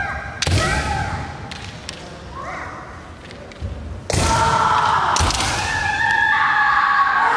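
Kendo bout: the fighters give long, pitched kiai shouts, one rising. Sharp cracks of bamboo shinai strikes and thuds of stamping footwork on the wooden floor come about half a second in and again about four seconds in, with the loudest, longest shouting after the second exchange.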